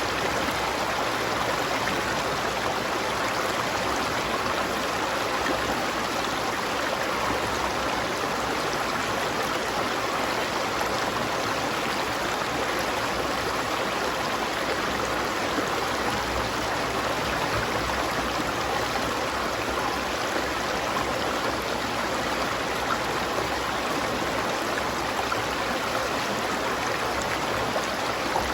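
A stream of running water flowing steadily, an unbroken rush with no separate splashes or other events.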